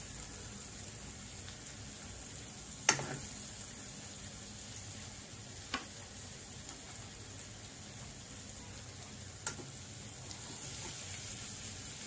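Chopped onion, ginger and green chillies frying in a non-stick kadai with a steady sizzle. A steel spoon knocks against the pan three times, the first, about three seconds in, the loudest.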